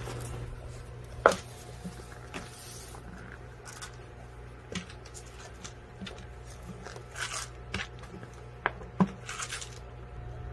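Puppy rooting at a striped fabric nose-work roll toy on a wooden floor: scattered light clicks, scrapes and rustles as it noses and shoves the toy, with a sharper knock about a second in and another near the end, over a steady low hum.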